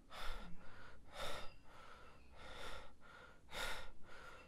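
A man breathing hard, gasping in and out with a strong breath about once a second and softer ones between, the panting of someone shaken and in distress.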